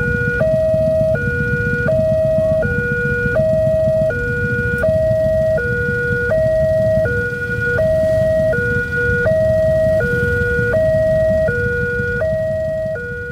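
Railway level-crossing warning alarm sounding its electronic two-tone signal, alternating a higher and a lower tone about every three-quarters of a second, warning that a train is due while the barrier is down. A steady low rumble runs underneath.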